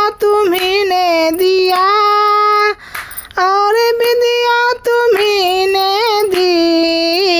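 A high-pitched solo voice singing a Hindi devotional bhajan in long drawn-out, wavering notes, with a short breath pause about three seconds in.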